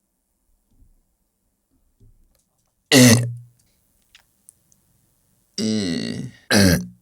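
A person's voice making short, loud sounds: one about three seconds in, falling in pitch, and two more near the end.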